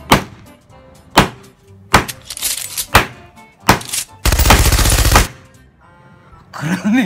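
Steel pliers knocking sharply on an old smartphone's glass screen against a rubber mat, five hard strikes about a second apart, and the glass holds without breaking. About four seconds in comes a second of loud, rapid rattling.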